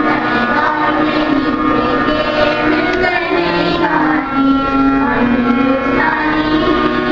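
A group of schoolgirls singing together into microphones over a loudspeaker system, a slow song of long held notes.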